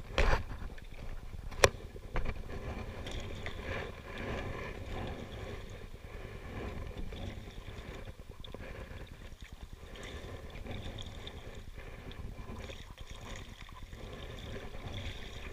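Canoe out on the water: paddle strokes and water splashing and lapping against the hull, with a sharp knock about one and a half seconds in.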